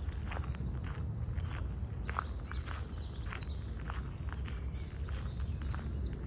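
Footsteps on a path, irregular hard steps a couple of times a second, over a steady low rumble and a high hiss.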